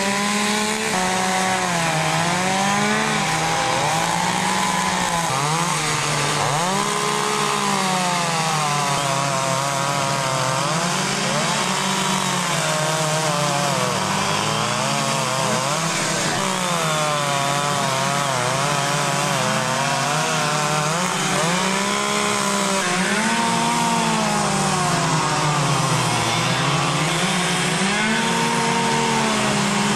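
Several two-stroke chainsaws running at once, their engines constantly revving up and down as they cut into wood for carving.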